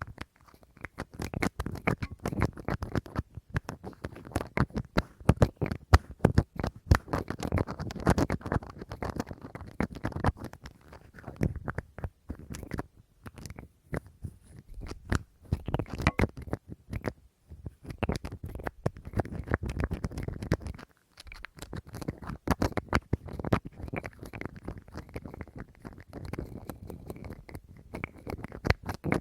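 Fast, dense tapping and scratching on a small object by fingers, in long runs broken by a few brief pauses.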